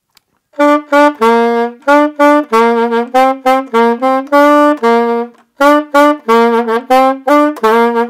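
Saxophone playing a simple melody in short, separate notes that move between a few pitches, with a brief pause about five and a half seconds in.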